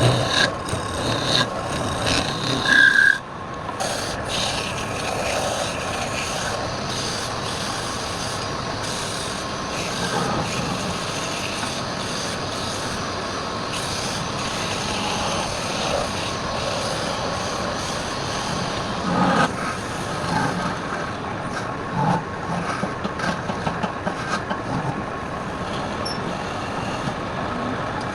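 Wood lathe running steadily, with a few brief louder scrapes or knocks, the loudest about three seconds in.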